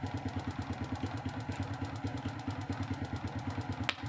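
Honda underbone motorcycle's single-cylinder four-stroke engine idling steadily with an even pulse, running again after its failed IC ignition module was replaced. A sharp click a little before the end.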